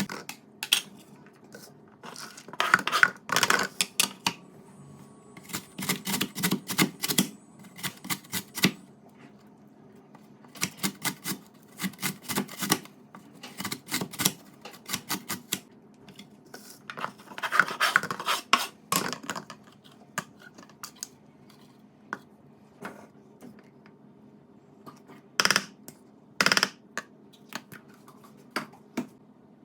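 Kitchen utensils and dishes clinking, tapping and scraping in bursts of quick clicks, with two sharper knocks near the end.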